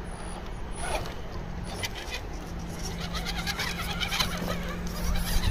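Small electric motor of an RC rock crawler running with a steady low whir as the truck works on a wooden obstacle, with faint bird chirps.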